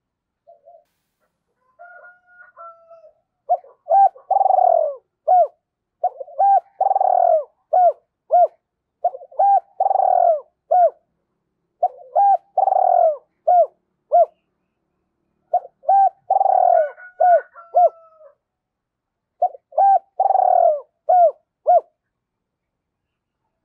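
Spotted dove cooing: after a few faint soft notes, six loud phrases come about three seconds apart, each a run of short rising-and-falling coos around one longer drawn-out coo.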